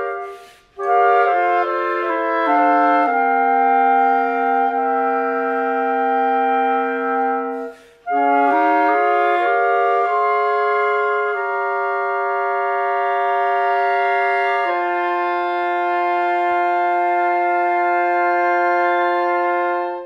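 Four multitracked clarinet parts playing a barbershop tag in close four-part harmony: sustained chords moving note by note, with two short breaks, about a second in and about eight seconds in, and a long held final chord from about fifteen seconds.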